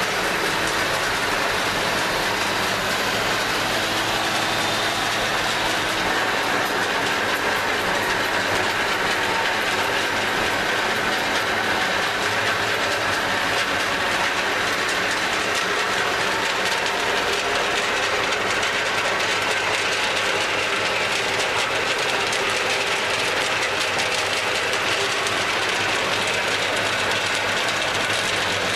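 1961 Gallis 310B roof bolter running: a loud, steady machine noise led by its dust-suction blower, with the drill steel drilling up into a steel truss.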